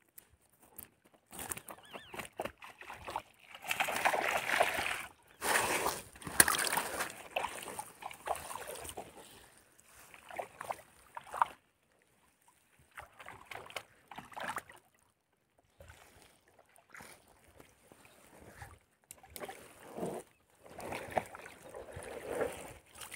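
Water splashing and sloshing in irregular bursts as hands and a fishing net work in the water beside small foam rafts, loudest a few seconds in.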